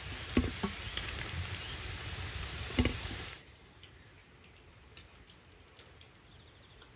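Meatballs frying in hot oil in a cast-iron cauldron: a steady sizzle with a few knocks, as of tongs and fried balls set into an enamel bowl. The sizzle cuts off suddenly about three and a half seconds in, leaving only faint background with small clicks.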